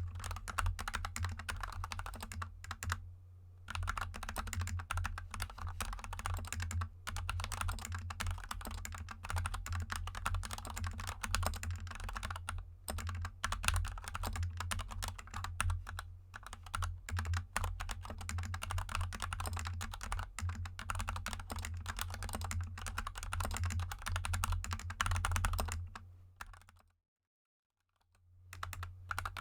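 Continuous fast typing on a GK64 mechanical keyboard with lubed Gateron Yellow linear switches and XDA keycaps, a dense run of key clicks and bottom-outs. It breaks off briefly about 3 seconds in, and cuts to silence for about a second near the end before the typing resumes.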